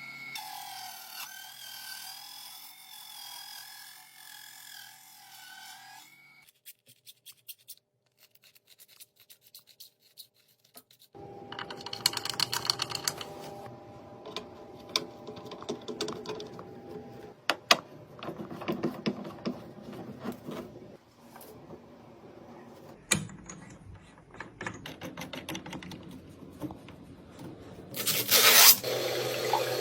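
Rubbing and scraping with many small clicks and knocks, and a brief louder rush near the end.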